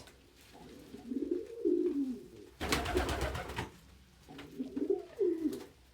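Domestic pigeons cooing: low, wavering coos about a second in and again near the end. In the middle comes a loud rustling burst lasting about a second.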